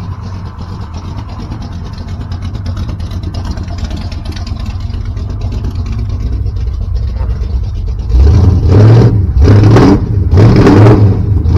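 A 408 stroker small-block V8 idling steadily. About eight seconds in it is revved in three quick throttle blips, each rising and falling in pitch. It is running on a newly fitted oil pump after an oil-pressure failure.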